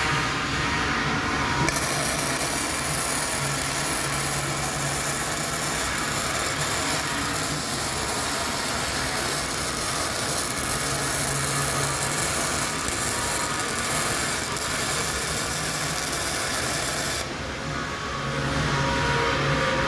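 Steel being worked with a power tool or welding arc in a workshop: a sustained harsh hiss starts about two seconds in and stops about three seconds before the end, over a steady background hum.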